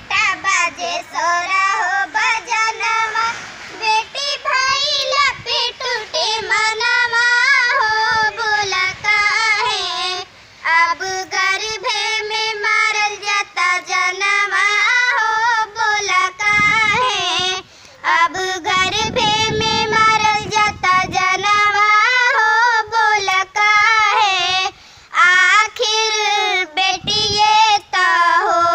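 A young girl singing a song solo in a clear, wavering voice, without accompaniment.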